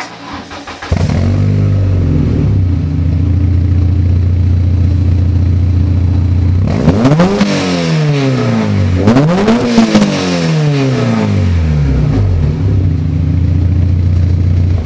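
Peugeot 306 GTi-6's 2.0-litre four-cylinder engine heard at the tailpipe through a Scorpion rear silencer, racetube centre pipe and aftermarket cat. It catches about a second in and settles to a steady idle. About seven seconds in it is revved twice in quick succession, each rev climbing and falling back, then it idles again.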